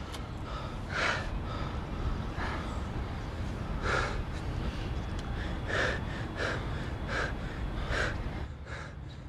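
Two young men panting hard, out of breath: a string of loud gasping breaths about one a second, over a steady low background rumble, easing off near the end.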